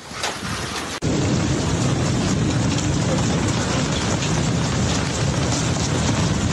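Hail and heavy rain pounding down in a loud, dense, steady clatter of impacts that starts abruptly about a second in.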